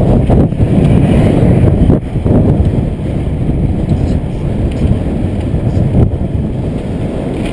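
Wind rushing over the microphone of a bicycle-mounted camera at riding speed: a loud, steady low rumble that eases slightly about two seconds in.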